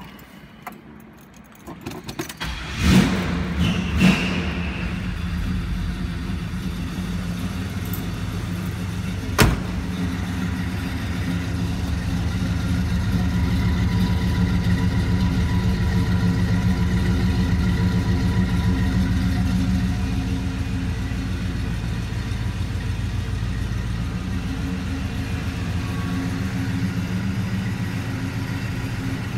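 A 1969 Chevrolet Chevelle's engine started about two seconds in, revved up twice, then idling steadily through the exhaust. A single sharp click about nine seconds in.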